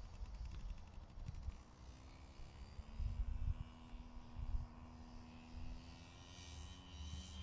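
Wind buffeting the microphone in uneven gusts, strongest about three and four and a half seconds in, with a faint steady engine drone that comes in about two seconds in.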